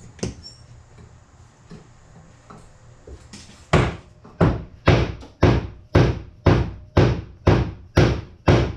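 Rubber mallet striking a camshaft in a steady run of sharp blows, about two a second, starting a little over halfway in after a few light knocks, driving a bearing onto the Yamaha Warrior 350's new cam.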